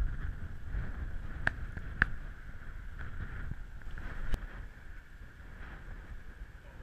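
Wind buffeting an action camera's microphone: a steady low rumble. A few sharp clicks come through it, two close together about a second and a half in and another just past four seconds. The rumble eases off over the last couple of seconds.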